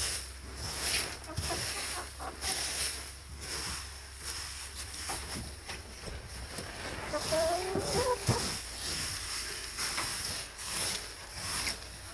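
Chickens clucking, with one drawn-out call about two-thirds of the way in, over repeated rustling and crunching noises.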